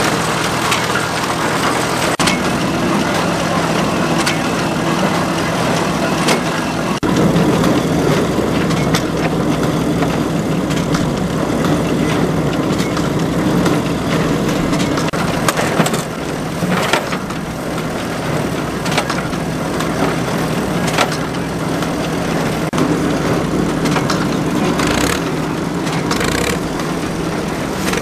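Vintage pick-up baler at work: its own engine runs steadily through the belt drive while the baler mechanism clatters, with a sharp knock about every two seconds.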